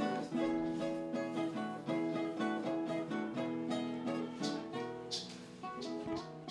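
Background music: plucked acoustic guitar, strummed and picked in a Latin style.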